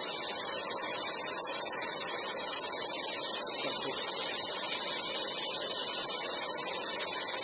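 Cylindrical fountain firework spraying a column of sparks with a steady, even hiss.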